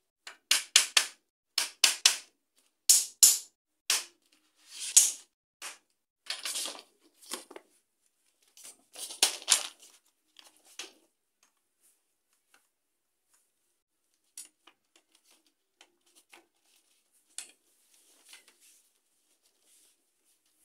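Plastic panels of a DIY cube wardrobe clacking and knocking against its frame and connectors as they are fitted in by hand. A quick run of sharp clicks and clacks, some in tight clusters, over the first half, then scattered faint ticks.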